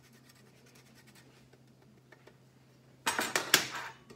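Parmesan cheese being grated by hand on a small handheld grater over a bowl: quick, faint, rapid scraping strokes that stop after about a second. About three seconds in comes a louder, brief clatter of kitchen things being handled.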